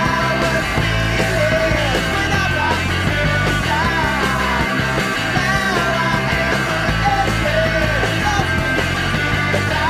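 Rock intro theme music, playing steadily at full level.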